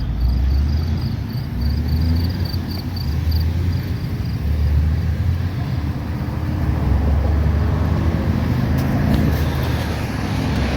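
Road traffic: cars going by, a steady low rumble with no break.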